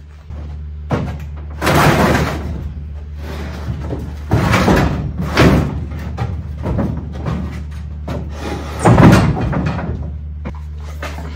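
Four loud knocks and thuds of heavy parts being handled and set down, the loudest about nine seconds in, over a steady low hum.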